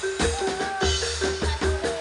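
Live jaranan dor music: quick, busy drumming with deep bass-drum thumps under a repeating pitched note and a wavering, gliding melody.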